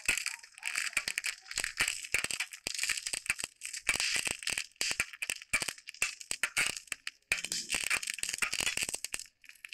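Cashews and pumpkin seeds sizzling as they fry in hot ghee, with a spoon clicking and scraping against the small metal pan as they are stirred. The sizzle and rapid clicks break off briefly just before the end.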